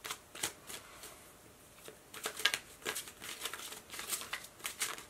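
A tarot deck being shuffled by hand: irregular runs of short card clicks and slaps, with a quieter pause about a second in.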